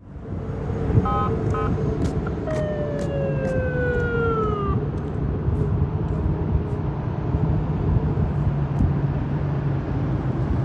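Police car siren giving a few short chirps, then one long falling wail that fades out, over the steady running of passing vehicle engines and road traffic.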